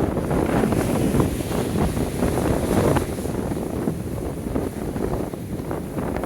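Wind buffeting the microphone over the rush of ocean surf. It is louder for the first three seconds, then eases somewhat.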